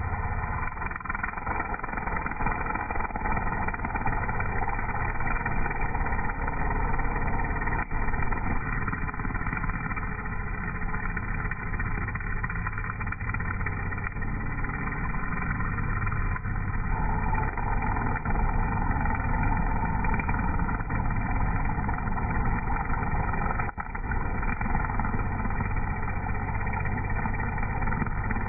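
String trimmer's small petrol engine running steadily while its line cuts grass, with only small rises and falls in level.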